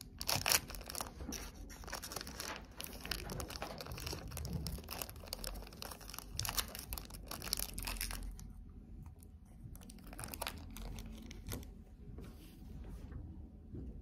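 Crinkling and rustling, as of paper or plastic being handled: dense and irregular for about the first eight seconds, then sparser and quieter.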